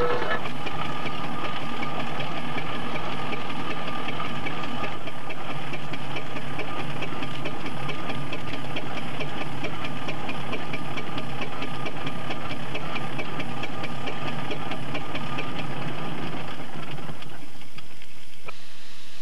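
Steam traction engine working its winch to haul a felled tree trunk on steel wire rope: a steady mechanical clatter with rapid, even beats. It dies away near the end.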